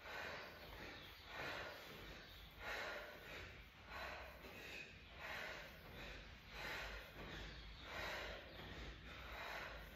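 A woman breathing hard and rhythmically during sit-ups, one faint, forceful breath about every second and a quarter.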